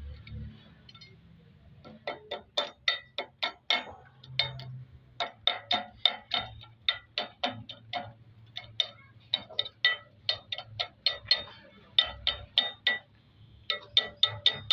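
Hammer tapping repeatedly on a metal engine part to drive it into place, each blow ringing. The taps come about three a second in runs with short pauses, starting about two seconds in.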